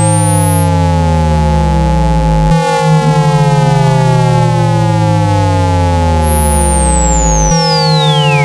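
Synthetic speaker-cleaning tones for ejecting water from a phone speaker: several steady tones under a stack of falling pitch sweeps that restart about every five seconds. A thin, very high whistle rises out of hearing early on and sweeps back down near the end, over a low pulsing buzz.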